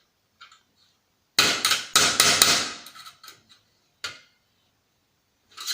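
Two loud knocks about half a second apart, each ringing on briefly, then a few lighter knocks: hand tools striking while working seized screws loose in an old CRT TV/DVD combo's casing.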